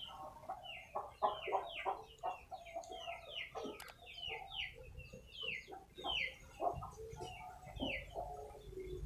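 Chickens clucking, with many short high peeps falling in pitch, several a second, and a single sharp click about four seconds in.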